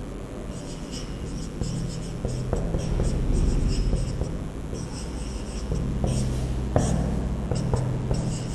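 Marker pen squeaking and scratching on a whiteboard as a line of an equation is written out in runs of short strokes with brief pauses, over a low steady hum.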